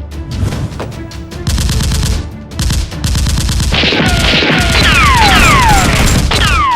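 Soundtrack of music with rapid machine-gun fire sound effects that grow louder partway through. From about four seconds in, a run of high whistling tones glides downward, one after another.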